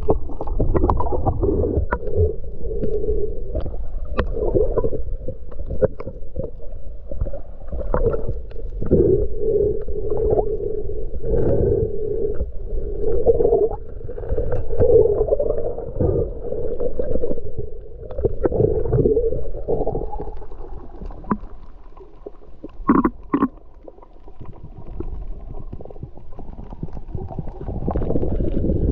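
Muffled underwater rumbling and water movement heard through an action camera's waterproof housing as a diver swims, swelling and fading every second or two, with scattered small clicks. It quietens for a few seconds past the middle, where two brief sharper sounds stand out.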